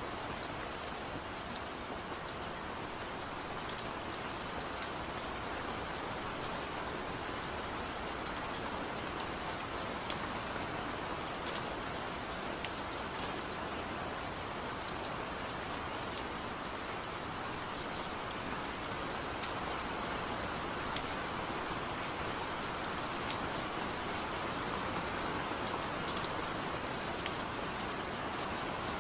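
Steady rain falling, a constant hiss with scattered sharper drops ticking through it.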